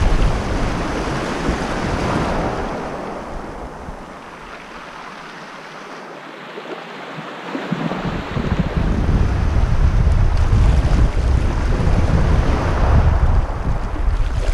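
Wind buffeting the microphone over small waves washing onto the beach. The wind rumble dies away for a few seconds in the middle, then gusts back up.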